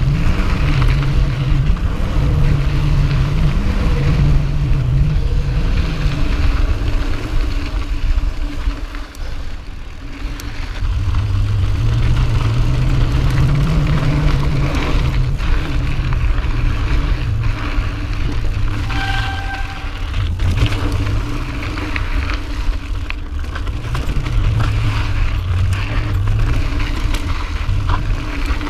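Mountain bike rolling fast down dry dirt singletrack, heard from a chest-mounted action camera: a steady low rumble of wind buffeting and tyres on dirt, with scattered clicks and rattles from the bike. It eases off briefly about a third of the way in, and a short steady tone sounds about two-thirds through.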